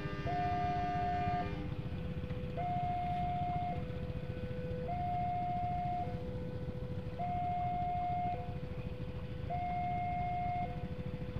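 Railway level-crossing warning alarm: an electronic two-tone signal alternating steadily between a higher and a lower note, each held a little over a second, sounding while the barriers are down for an approaching train. Low rumble of idling motorcycle engines underneath.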